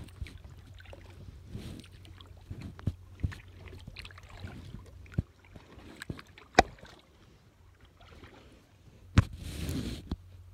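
Kayak paddle strokes dipping and splashing in calm water, with scattered sharp knocks; the two loudest come about six and a half and nine seconds in, the second followed by a splash.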